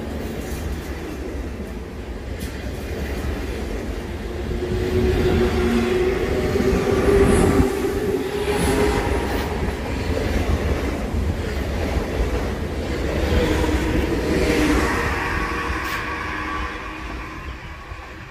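Z2N double-deck electric train running along the platform and away, its traction motors whining over the rumble of wheels on rail. The sound swells through the middle, then fades as the train draws off near the end.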